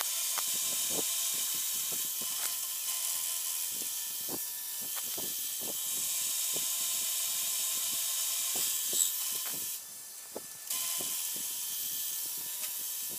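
Milling machine end mill cutting a slot in a metal block: a steady high-pitched cutting hiss over a faint steady whine, with many small ticks of chips flying off. The cutting noise dips for under a second about ten seconds in.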